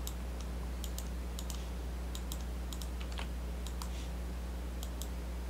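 Irregular clicking of a computer keyboard and mouse as drafting commands are entered, about a dozen sharp clicks over a steady low electrical hum.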